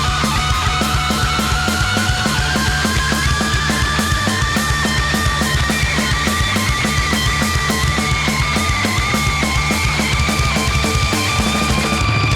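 Rock band playing loud live, with driving drums and distorted guitars in an instrumental jam. A sustained high tone slowly rises in pitch over the whole passage.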